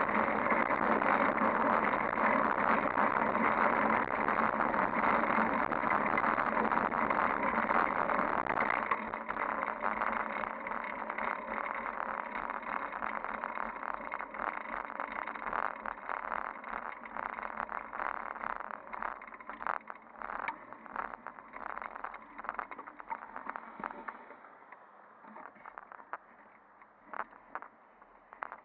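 Wind and tyre noise on a camera mounted to the handlebars of a moving bicycle, loud and steady at first, then quieter from about nine seconds in with many sharp clicks and rattles. It fades almost to silence near the end as the bicycle slows to a stop.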